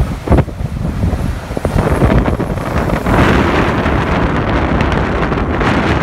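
Strong wind buffeting the microphone, with breaking ocean surf behind it; a broader rushing hiss swells up about three seconds in.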